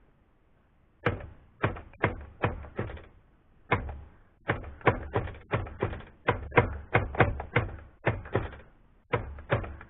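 Remington Noiseless No. 6 typewriter being typed on: a run of about two dozen keystrokes starting about a second in, roughly three a second with short pauses. It is a typing test of the carriage after its draw band was loosened.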